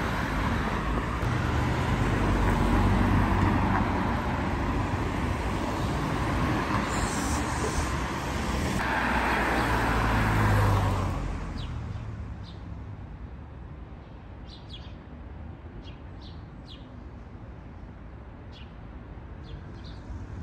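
Cars passing on a road, tyre and engine noise swelling as they go by and loudest about three and ten seconds in. After about twelve seconds the traffic fades to a low hum and small birds can be heard chirping.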